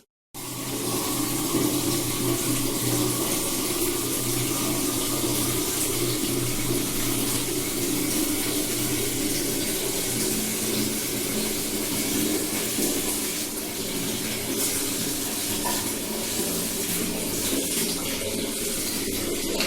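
Water from a tap running and splashing steadily, starting just after a momentary dropout at the very beginning.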